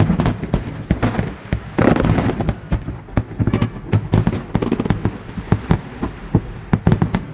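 Aerial fireworks shells bursting in quick succession, a dense run of bangs and pops, with a louder, thicker stretch about two seconds in.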